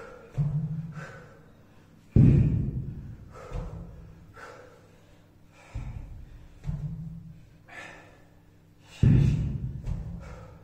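A person breathing hard through a kettlebell workout, with short forceful breaths about once a second. Low thuds come at uneven intervals, every one to three seconds, the loudest about two seconds in and again near nine seconds.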